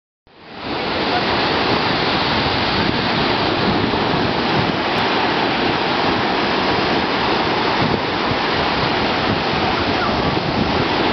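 Ocean surf breaking and washing toward the shore, a steady rush of water.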